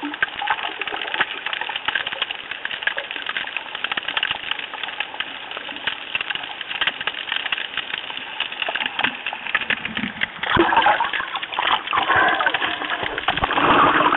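Water heard underwater through a camera housing: a constant crackle of fine clicks, with louder surges of rushing water from about ten seconds in.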